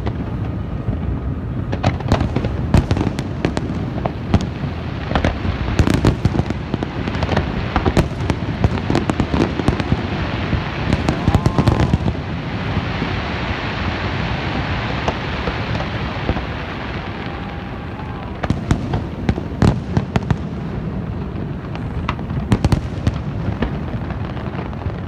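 Fireworks going off: many sharp, irregular bangs over a continuous low rumble, with a stretch of dense hissing crackle about halfway through.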